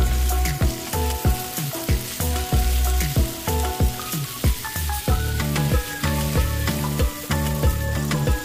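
Background music with a steady beat of about three a second and a melody, over the sizzle of masala-coated chicken frying in a pan as a spatula stirs it.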